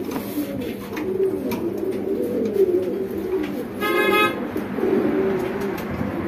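Domestic pigeons cooing steadily in their wire cages. About four seconds in, a short horn-like toot sounds once.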